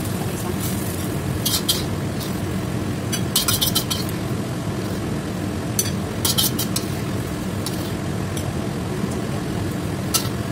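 Metal spatula scraping and clinking against a wok in short bursts every second or two while greens are stir-fried and scooped out, over a steady low rumble from the stove.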